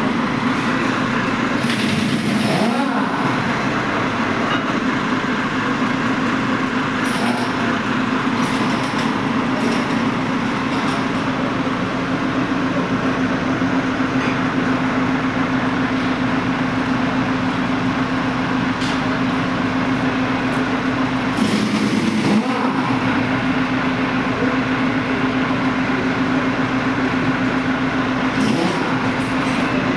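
Vehicle engine running with a steady drone, its pitch shifting briefly twice, about two seconds in and again past the middle.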